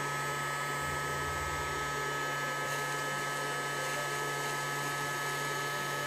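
Casdon toy Dyson DC22 cylinder vacuum cleaner's battery-powered motor running steadily as it sucks up polystyrene balls: an even whirring with a constant low hum and a thin steady whine.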